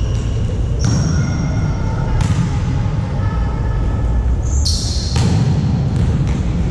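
Indoor volleyball play: the ball is struck or bounces several times, with sharp echoing hits about a second, two seconds and four and a half seconds in, followed by short high squeaks, over a steady din of hall noise.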